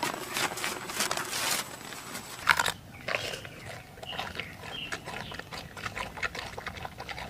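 A giant panda chewing a bamboo shoot, crisp crunching bites and chewing clicks. They follow a couple of seconds of dense crackling noise that ends in a sharp snap.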